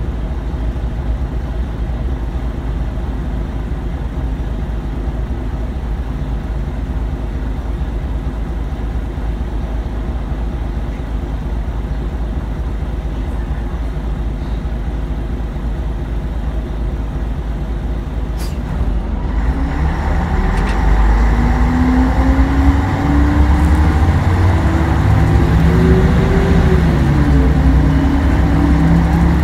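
City bus engine idling while the bus stands at a traffic light, heard from inside the bus. About two-thirds of the way through it gets louder as the bus pulls away, the engine pitch climbing and then dropping back at a gear change.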